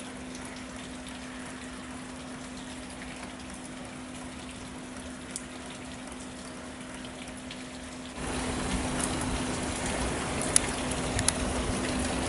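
Rain falling, a steady hiss with a faint low hum under it; about eight seconds in it steps up louder, with a few scattered drips.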